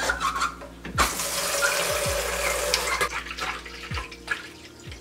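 Water running into the plastic tank of a hand-pump pressure washer, filling it. The flow is strongest from about a second in until about three seconds in, then runs on more lightly.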